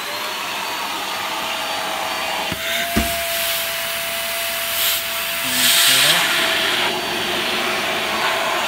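Vacuum cleaner running steadily with a constant motor whine, its hose sucking oven-softened plexiglass down over the eye form to pull it into a concave lens. A single sharp knock about three seconds in.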